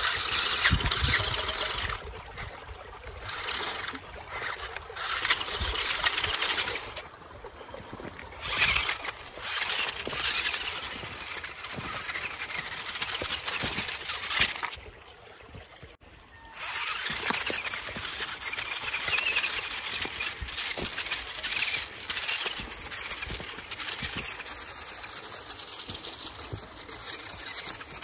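RC rock crawler driving over loose stones, its tyres crunching and clattering the rocks in irregular bursts, with a short lull about halfway through.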